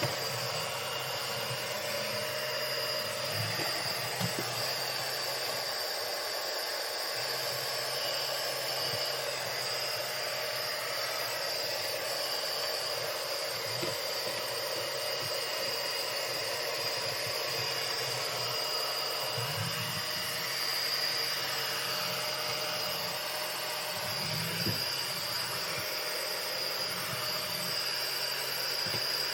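iRobot Roomba Combo 2 Essential robot vacuum running as it cleans: the steady hiss of its suction fan with a constant high whine, and a few short low knocks now and then.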